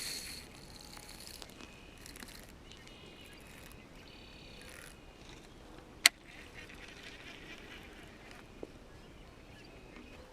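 Faint birds calling, a series of short, repeated high calls spread over the first few seconds, with a single sharp click about six seconds in.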